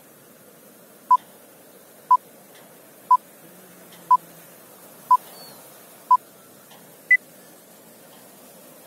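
Film-leader countdown beeps: six short beeps one second apart at the same pitch, then a seventh, higher beep a second later, over a faint hiss.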